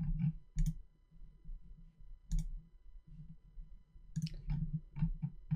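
Computer mouse clicks: a few spaced clicks at first, then a quicker run of about six near the end, as images are picked and downloaded from a web page.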